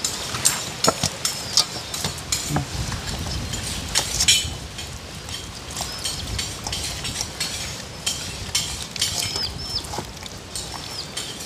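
Hands rubbing seasoning into whole raw fish in a stainless steel bowl: wet rubbing and handling of the fish, with irregular clicks and knocks against the metal bowl.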